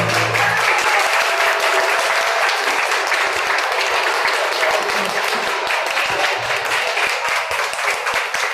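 An audience clapping: dense, steady applause with voices mixed in. In the first moment, the last note of the dance music fades out.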